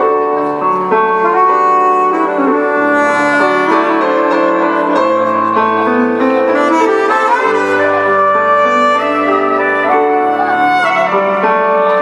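Live band playing, with saxophone and brass over keyboard, in long held notes.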